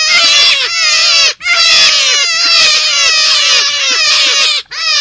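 Animal lure recording labelled as forest rabbit calls: a loud, fast, overlapping series of high squealing notes that slide downward, with short breaks about 1.4 seconds and 4.7 seconds in.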